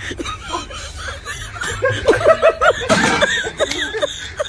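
Men laughing: a burst of rhythmic chuckling laughter, about four short 'ha' syllables a second, peaking about two seconds in.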